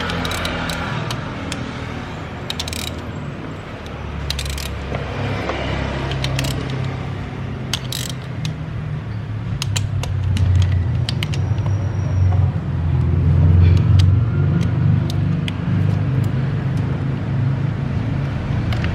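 Metal tools and parts clinking now and then over a continuous low machine hum, which grows louder about ten seconds in.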